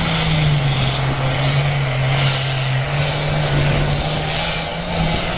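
Super farm class pulling tractor's turbocharged diesel engine running hard under load as it drags the weight sled. Its pitch drops about half a second in as the engine lugs down, holds low, then climbs back near the three-second mark, over a steady hiss.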